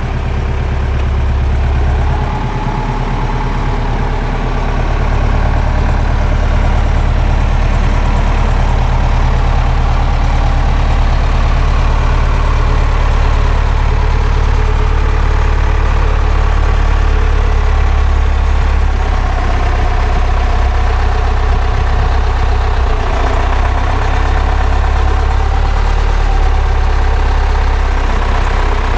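Zetor 7011 tractor's four-cylinder diesel engine running steadily.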